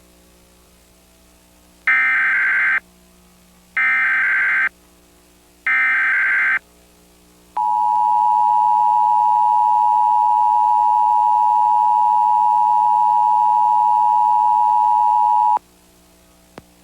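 Emergency Alert System test signal: three one-second bursts of the digital SAME header, sent as buzzing modem-like data tones about two seconds apart. These are followed by the two-tone attention signal (853 and 960 Hz together), a steady dual tone held for about eight seconds and cut off suddenly.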